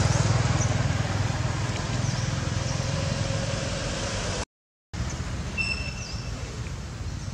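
Steady low rumble of a running engine, with the sound dropping out completely for about half a second midway. A few faint high chirps follow soon after.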